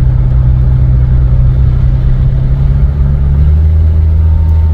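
Loud, steady exhaust drone of a 1988 Jeep Cherokee XJ engine while driving, heard from inside the cab; a deeper note swells about three and a half seconds in. The exhaust manifolds are cracked, which makes it loud.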